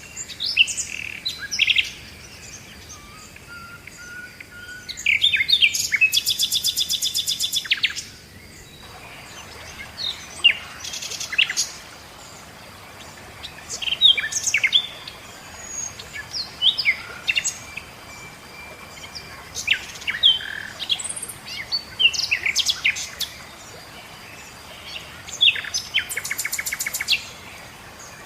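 Songbirds singing: many short, sharp chirps and whistled notes, with a fast trill of evenly repeated notes twice, about five seconds in and again near the end, over a faint steady outdoor background.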